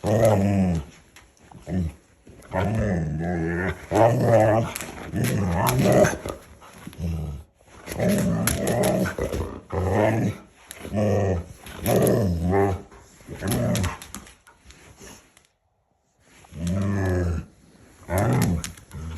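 Husky grumbling and growl-howling in a long series of drawn-out calls that rise and fall in pitch, protesting against being rubbed with a towel. There is a short pause near the end.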